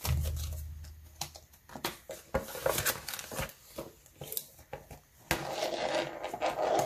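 Paper banknotes and clear plastic zip pouches in a ring binder being handled: rustling bills, crinkling plastic and small clicks as the binder page is turned, with a longer stretch of rustling near the end.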